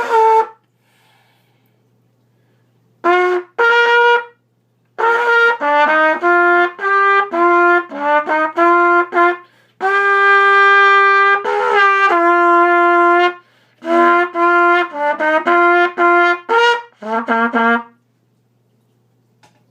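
Solo B-flat trumpet playing a melody in short phrases. There is a long held note about halfway through and a lower closing note near the end, then the playing stops.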